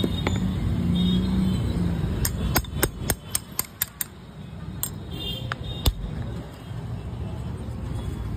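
Sharp taps of a small steel chisel against a coconut's hard shell: a quick run of about eight taps, roughly four a second, from about two seconds in, then three single taps a little later.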